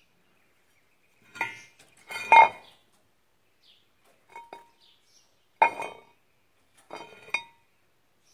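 Steel disc-plow parts clinking and clanking as they are handled: about five separate metal knocks, each with a short ring, the loudest about two seconds in.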